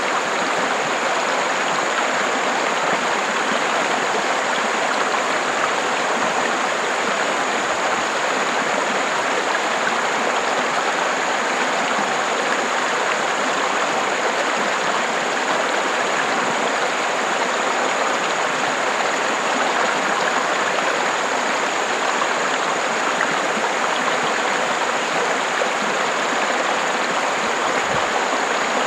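River water running steadily, an even, unbroken wash of flowing water.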